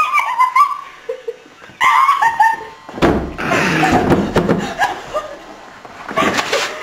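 Girls giggling and squealing in short wavering bursts, with a thump about three seconds in.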